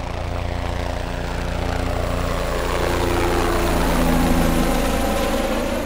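Engine of an ultralight experimental helicopter running steadily at idle on its first run-up. It grows slowly louder, then dies away near the end.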